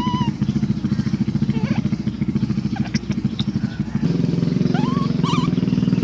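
A small engine running steadily with a fast pulsing beat, getting louder about four seconds in. A few short, high rising calls sound over it.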